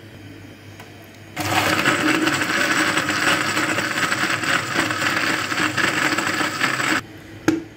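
Countertop electric blender running on a jar of mango, dates, crushed ice and milk, blending it into a thick milkshake. The motor starts suddenly about a second and a half in, runs steadily for about five and a half seconds, then is switched off abruptly, with one sharp click shortly after.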